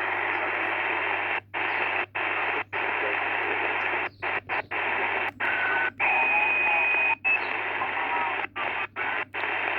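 Sony ICF-SW100 shortwave receiver's speaker giving out band hiss on 20 metres in lower sideband mode, cutting out briefly about a dozen times. Short carrier whistles and faint garbled sideband signals come through the hiss.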